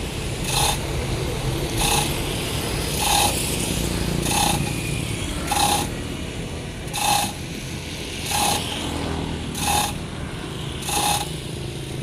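A metal ratchet mechanism clicking at an even pace, one sharp metallic clink about every second and a quarter, over a steady low rumble.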